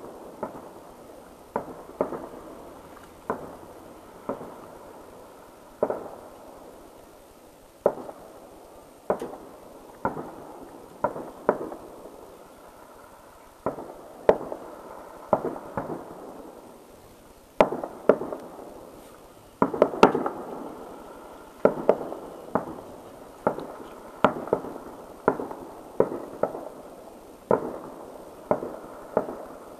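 Aerial firework shells bursting, a string of sharp bangs one to two seconds apart, each trailing off in an echo. The bursts come thicker and louder around two-thirds of the way through.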